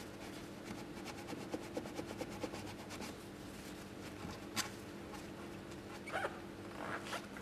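Quiet workshop room tone: a steady low hum under faint scratchy handling noises, with a few light clicks, the sharpest about four and a half seconds in.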